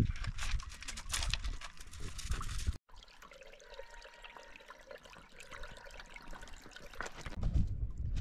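Footsteps crunching on beach pebbles, which stop abruptly about three seconds in. Then a shallow stream trickles softly over stones. Footsteps on stony ground come back near the end.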